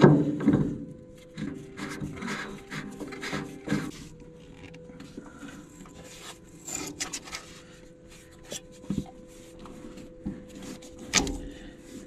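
A hand wiping and rubbing dust off the outside of a bulldozer's metal filter canister: irregular scrubbing strokes, with a couple of sharper knocks near the end.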